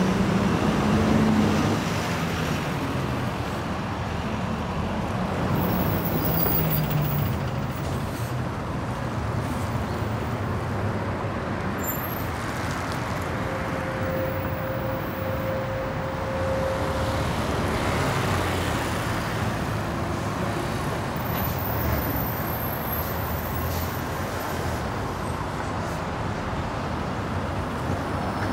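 Steady city road traffic noise. A vehicle engine passes with falling pitch in the first several seconds, and a brief steady whine is heard about halfway.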